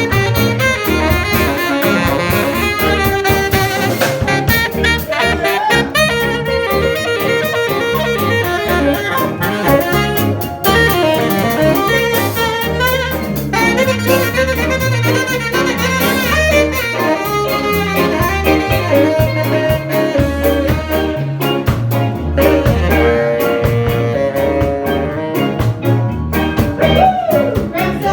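Live band playing an instrumental jazz passage, with saxophone leading over bass and drum kit.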